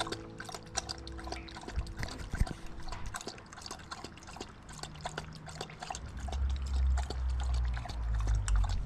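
Dog lapping water, a quick run of wet clicks a few times a second. A low rumble comes in about six seconds in and is the loudest part.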